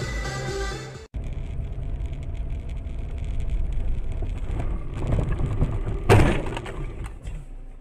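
Music breaks off about a second in, giving way to a car's low road and engine rumble. About six seconds in, a single loud, sharp impact of a car collision is the loudest sound, and it dies away within a second or so.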